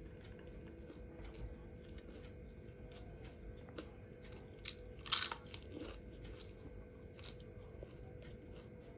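Close-miked eating: soft chewing clicks and a few crisp crunchy bites, the loudest about five seconds in and another about two seconds later, over a faint steady hum.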